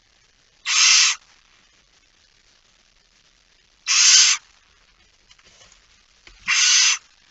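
Barn owl giving three hissing calls in the nest box, each about half a second long and about three seconds apart.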